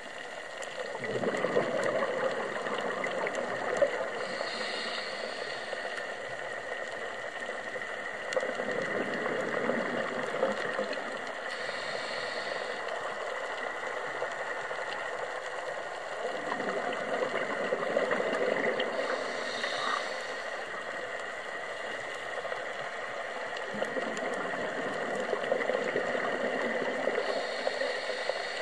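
Scuba diver breathing through a regulator underwater: a short hiss of inhalation through the demand valve, then a longer gurgling rush of exhaled bubbles, repeating about every eight seconds, four times. A steady thin high tone runs underneath.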